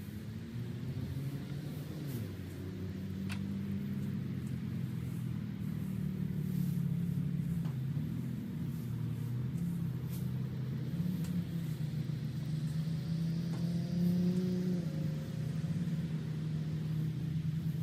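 A vehicle engine running steadily, its pitch shifting now and then, with faint rustling and crackling of dry hay being pulled by hand from a bale.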